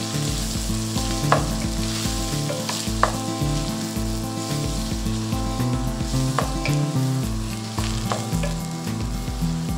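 Moong dal and ground spices sizzling in oil in a stainless steel pot while a wooden spatula stirs them, with a few sharp knocks of the spatula against the pot. This is the stage of frying the spices until their raw smell is gone.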